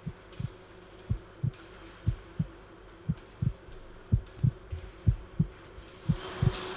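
Amplified human heartbeat, deep paired thumps about once a second, over a faint steady hum.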